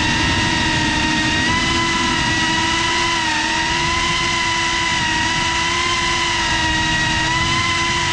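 FPV quadcopter's electric motors and propellers whining steadily, heard from the camera on the drone itself, the pitch dipping and rising slightly as the throttle changes.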